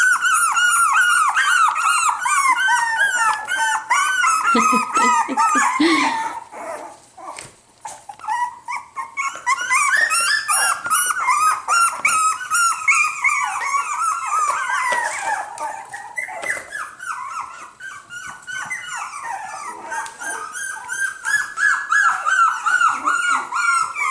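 A litter of four-week-old cockapoo puppies whining and yipping over one another in many short, high-pitched calls, with a brief lull about seven seconds in.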